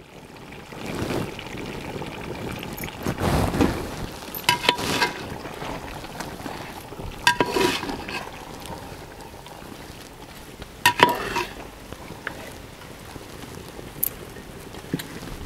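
Metal ladle stirring thick chicken curry in a large metal pot, scraping through the curry with a few sharp, ringing clinks against the pot, in three separate spells. The coriander has just been stirred in and the curry is nearly done.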